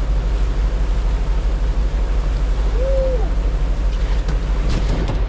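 Boat engine running steadily with wind on the microphone, with a single short hoot-like tone about three seconds in.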